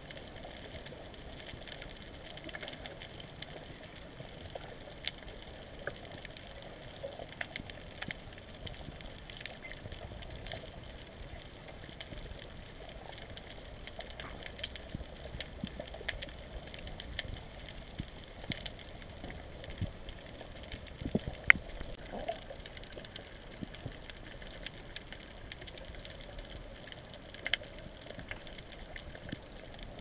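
Underwater ambience as heard through a submerged camera: a steady hiss and wash of water with scattered sharp clicks and crackles, the loudest click about two-thirds of the way in.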